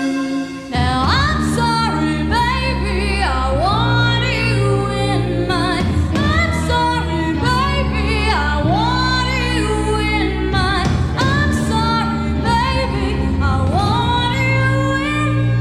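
Live pop-jazz-rock band playing a song, with a woman singing the lead melody. Held keyboard chords give way about a second in to the full band with a steady bass line under the voice.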